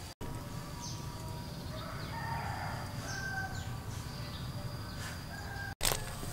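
A rooster crowing in the background about two seconds in, over a steady low rumble. The sound drops out for an instant at the start and again near the end.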